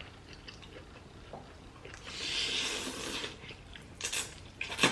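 Close-up eating sounds at a meal of spaghetti and shrimp: faint mouth noises, then a wet, squishy hiss lasting about a second midway, and two sharp clicks near the end.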